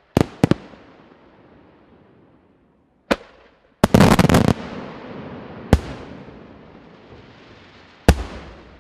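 Aerial fireworks shells bursting: separate sharp bangs, with a dense cluster of rapid reports about four seconds in, each trailing off in echo.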